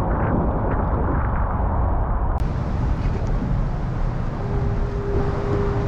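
Wind buffeting an action camera's microphone in a small open boat, a loud, steady rumble. A steady hum joins it about four and a half seconds in.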